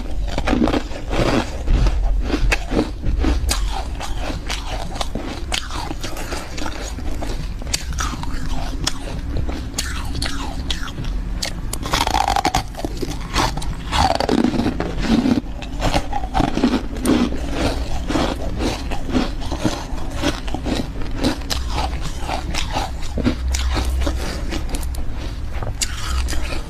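Refrozen freezer frost bitten and chewed close to the microphone: a continuous, irregular run of crisp crunches.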